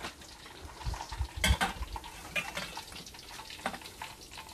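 Hot oil sizzling in a frying pan, with a few knocks and scrapes of a cooking utensil against the pan; the loudest knock comes about a second and a half in.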